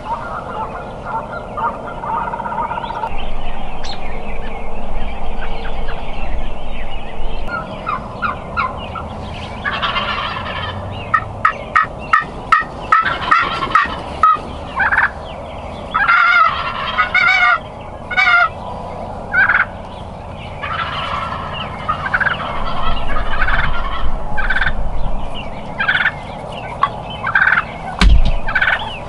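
Wild Merriam's turkey toms gobbling: several loud rolling gobbles from about a third of the way in, with strings of short sharp calls between them. A low thump near the end.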